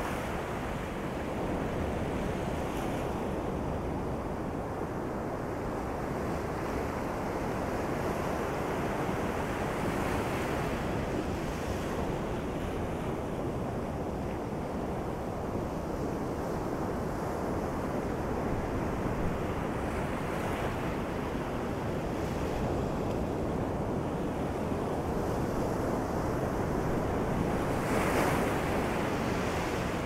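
Ocean surf on a sandy beach: a continuous wash of rolling waves, swelling as a few waves break, the biggest one near the end.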